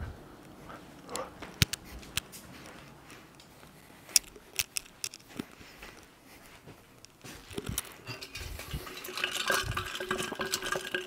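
Kitchenware clinking and knocking: scattered sharp clicks of dishes and utensils being handled. About eight seconds in, a steadier, louder rushing sound starts.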